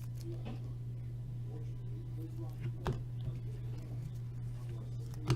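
Trading cards being handled, with a few faint clicks and taps, the sharpest about three seconds in and near the end, over a steady low hum.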